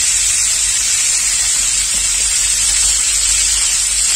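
Scad fish frying in hot oil in a pan: a steady sizzling hiss.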